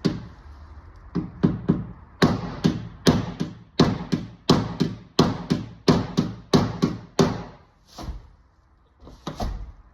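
Repeated metal hammer blows on a damaged car door's sheet steel, about two or three a second, as the dented door skin is worked back out to shape; the blows pause after about seven seconds, and two more follow near the end.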